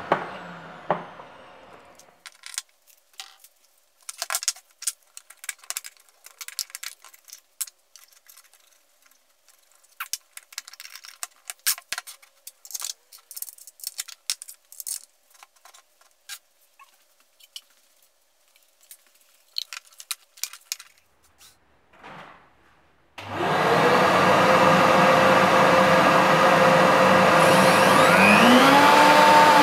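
Scattered light clicks and taps of tool parts being handled and set down on a wooden workbench. Then, about 23 s in, a high-speed electric motor starts with a rush of air and runs loud and steady with an even whine.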